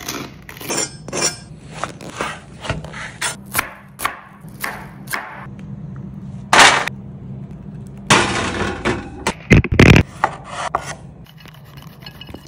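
Kitchen food-preparation sounds in quick succession: a run of short, rasping strokes about two to three a second, then a brief hiss and a longer hiss, and two loud thumps near the end.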